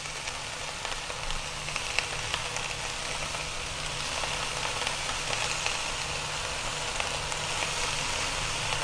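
A roast with onions, carrots and potatoes sizzling in a pan on a stove burner at medium to medium-high heat: a steady hiss with scattered small pops, over a steady low hum.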